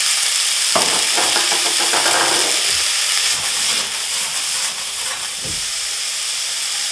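Frozen peas sizzling with a loud hiss in a hot stainless steel saucepan of sweating onions. The pan is shaken to toss them partway through, and the hiss eases a little after about four seconds.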